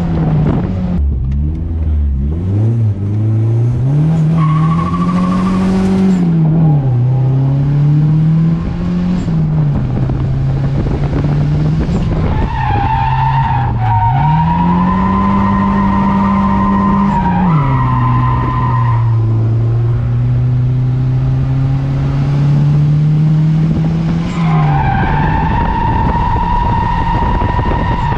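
Nissan 240SX's turbocharged SR20DET inline-four, heard from inside the car, revving up and down repeatedly through a drift run. Tires squeal in long stretches, from about the middle and again near the end.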